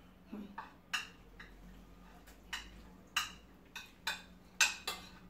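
Metal spoons and forks clinking and scraping on ceramic plates during a meal: about eight short, sharp clicks, irregularly spaced, with quiet between them.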